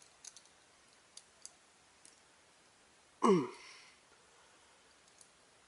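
A few faint, brief plastic clicks as a Beyblade launcher and its grip support are handled and twisted to unlock them. About three seconds in comes a short, louder vocal sound from a man, falling in pitch.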